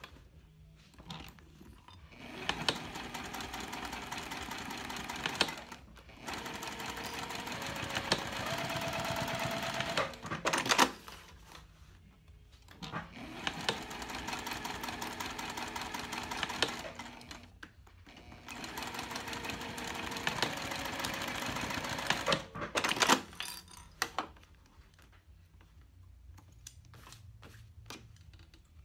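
Juki TL2010Q straight-stitch sewing machine stitching through cork fabric in four steady runs of a few seconds each, with short pauses between them. A few sharp clicks come near the middle and again after the last run.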